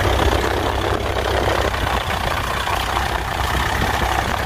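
Farm tractor's diesel engine running steadily while the tractor is stuck in the mud of a flooded rice paddy.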